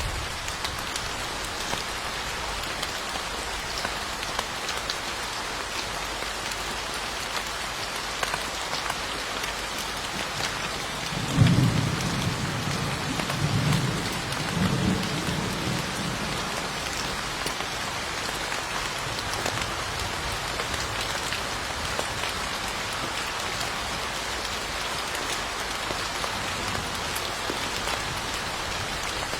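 Steady hiss of rain falling. About eleven seconds in, a low rumble of thunder comes in, loudest at its onset, and rolls on in three swells for about five seconds before fading back under the rain.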